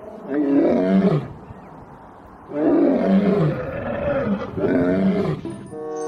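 Male lion roaring: a roar falling in pitch about half a second in, then a run of several more falling roars from about two and a half seconds in.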